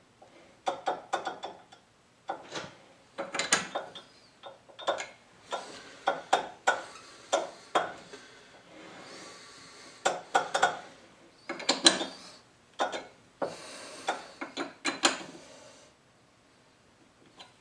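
Lathe's four-jaw chuck turned by hand in short jerks: a run of sharp clicks and clacks from the spindle and its gearing, in irregular clusters with brief pauses, as a part is centered against a dial indicator.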